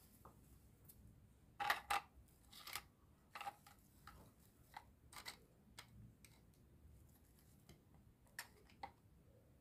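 Hard plastic toy food pieces and trays knocking and clicking as they are handled and set down: a sharp double knock about two seconds in, then scattered lighter taps.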